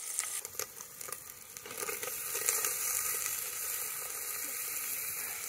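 Beef chunks sizzling as they sear in a hot cast-iron pot: a steady, high frying hiss, with a few light clicks in the first half.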